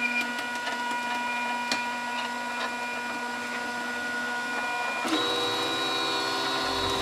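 FlashForge Dreamer 3D printer running, its stepper motors whining in steady tones that change pitch as each move starts, about five seconds in. A few sharp clicks sound in between.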